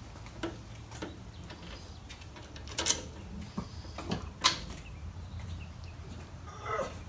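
A few scattered sharp clicks and knocks, two louder ones about three and four and a half seconds in, over a low steady hum: metal tools and parts being handled during a motorcycle rear-shock install.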